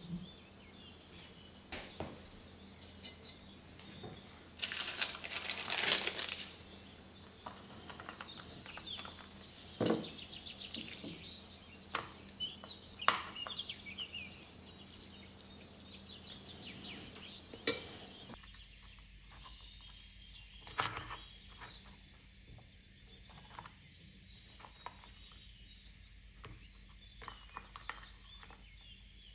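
A metal spoon scraping and tapping creamy filling out of a dish and onto dough in a plastic empanadilla press, with scattered clicks and knocks of the press and utensils, and a longer rustling scrape about five seconds in.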